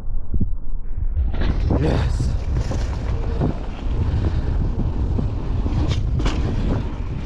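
Wind buffeting the microphone over a loud low rumble, with scattered short knocks and rattles.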